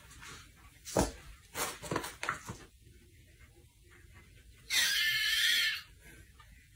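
A few soft knocks and scuffles, then, nearly five seconds in, a kitten gives one high-pitched mew about a second long.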